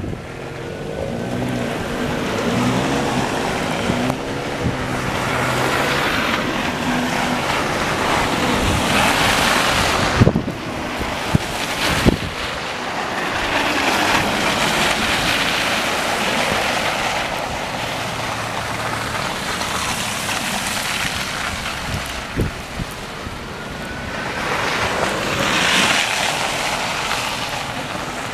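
Traffic on a snow-covered road in a snowstorm: cars passing through slush, each swelling and fading as a rush of tyre noise, with an engine hum near the start. Wind buffets the microphone.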